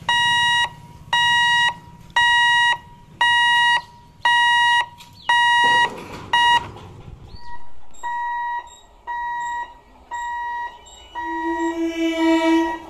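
Level-crossing warning buzzer beeping about once a second while the boom barrier lowers across the road. After a cut the beeps go on more faintly, and near the end an approaching EMU local train sounds its horn for about a second and a half.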